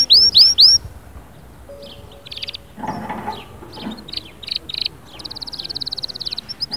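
Domestic canary singing: a loud run of repeated sweeping whistled notes at the start, then softer scattered notes, and a fast rolling trill about five seconds in.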